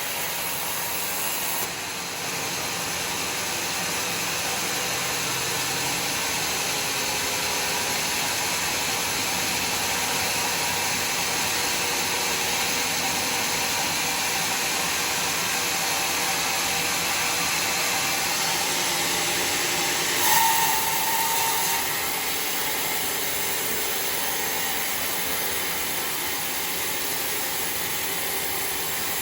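Sawmill saw running steadily through a bayur log, a continuous noisy machine sound, with a brief louder whine about two-thirds of the way through.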